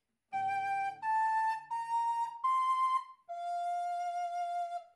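Wooden recorder playing a short phrase, the second ending with its B-flat: four short notes stepping upward, then a lower note held about a second and a half.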